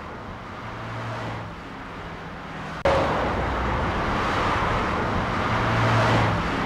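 Demonstration recording of steady complex noise played twice, the same clip each time; about three seconds in it jumps suddenly to the second play, 10 dB louder, which is meant to sound twice as loud.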